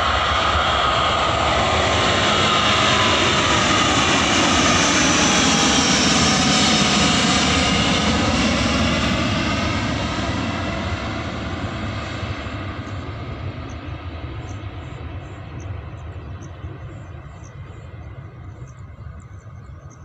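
Airbus A330-900neo's Rolls-Royce Trent 7000 turbofans at takeoff thrust as the airliner climbs out. The sound is loud, with tones sliding down in pitch as it passes, then fades steadily over the second half as it climbs away.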